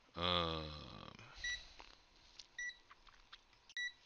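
Zoyi ZT703S multimeter's key beep sounding three times, about a second apart, as its buttons are pressed to switch it to capacitance mode, with faint button clicks between. It is preceded by a man's short, low, wordless hum, the loudest sound.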